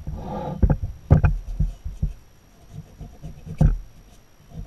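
Aprilia SXV aluminium engine crankcase half being handled and shifted on a wooden workbench: a short scrape, then several dull knocks and bumps, the loudest about a second in and another near the end.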